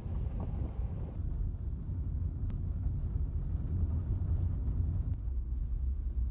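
A car driving along an unpaved road: a steady low rumble of tyre, road and engine noise, with some wind noise on the microphone.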